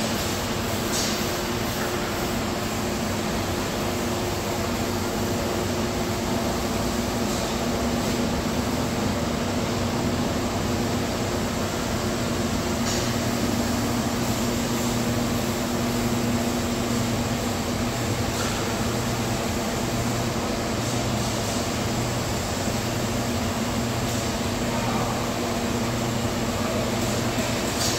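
Steady drone of industrial machinery and ventilation in a large fabrication hall: an even noise with a low hum underneath.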